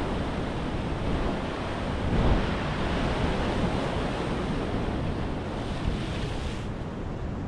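Sea surf washing on a rocky shore, a steady rush that swells briefly about two seconds in, with wind buffeting the microphone.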